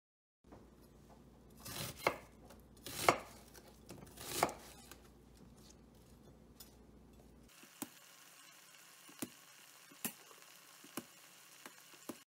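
Food prep on a plastic cutting board: three loud scraping strokes in the first half, then sharp single knife chops against the board about once a second.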